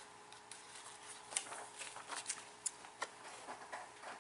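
Faint paper handling: scattered light rustles and clicks as a printed booklet is handled.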